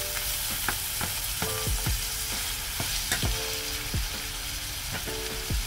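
Minced beef with onion and green bell pepper sizzling in a frying pan while a wooden spatula stirs it, its strokes scraping and knocking against the pan about twice a second.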